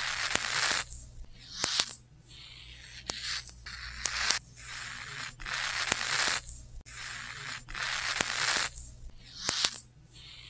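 Hermit crab's raspy stridulation: a run of hissy, scratchy bursts, each up to about a second long, with short gaps and sharp clicks between them.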